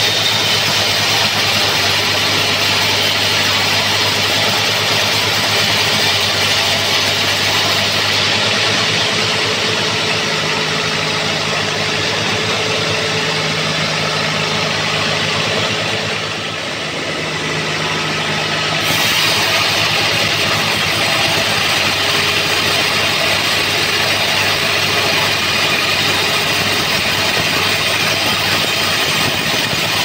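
Band sawmill running steadily, its blade sawing lengthwise through an old trembesi (rain tree) log: a steady machine hum with the noise of the cut. The level dips briefly a little past the halfway point.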